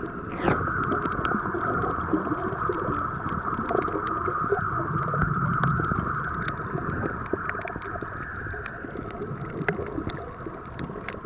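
Underwater ambience picked up by a camera held below the surface over a coral reef: a steady muffled wash of noise with many small sharp clicks scattered through it.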